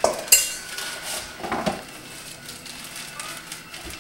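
A measuring cup knocking against a mixing bowl while powdered sugar is scooped and measured in. There are two sharp, ringing clinks in the first half second, then softer scraping clinks about a second and a half in.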